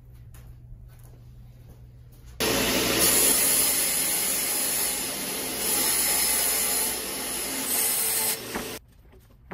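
Table saw fitted with a 90-tooth crosscut blade running and cutting through a melamine-faced panel. It starts abruptly about two and a half seconds in and cuts off shortly before the end; before it there is only a low hum.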